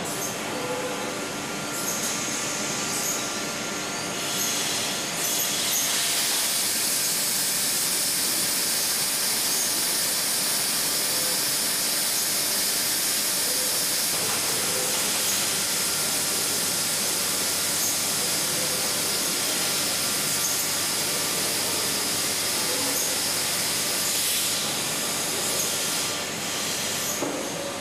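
Factory machinery on a stainless-steel keg line running, with a steady loud hiss that starts about six seconds in and eases off near the end.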